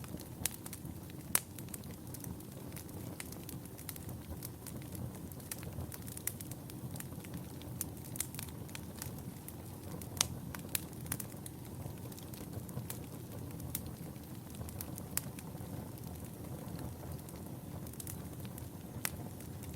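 Wood fire burning in a fireplace: a steady low rush of flames with frequent sharp, irregular crackles and pops.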